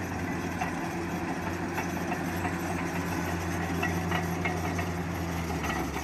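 Caterpillar D9T bulldozer's diesel engine running steadily while the blade pushes dirt, with faint scattered clicks.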